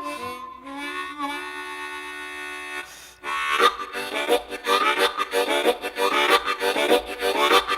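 Harmonica playing a train imitation: a held chord, then from about three seconds in a fast, rhythmic chugging of chords.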